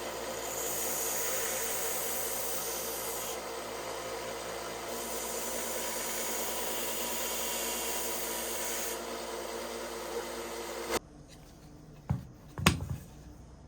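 Pocket-knife blade being ground on a motor-driven abrasive to put a new edge on it: a steady grinding hiss over an even motor hum. It cuts off suddenly about eleven seconds in, followed by two light knocks.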